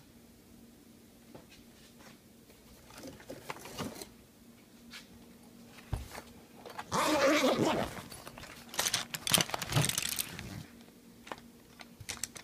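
Handling and rummaging noises of paintbrushes being moved about in a black brush case: scattered clicks and light knocks, a loud rustling scrape about seven seconds in, and a quick run of clattering clicks around nine to ten seconds.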